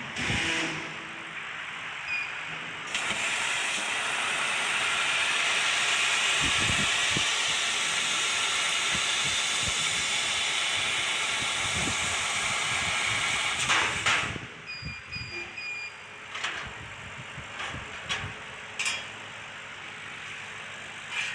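JETLASER METAL JET 1390 CO2 laser cutter cutting steel sheet: a loud, steady hiss of gas rushing through the cutting head starts about three seconds in and stops abruptly a little past the middle. Afterwards, quieter machine noise with a few short high tones and clicks.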